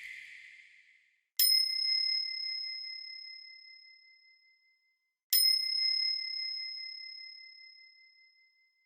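A small bell struck twice, about four seconds apart, each a clear high ding that rings on and fades away over about three seconds.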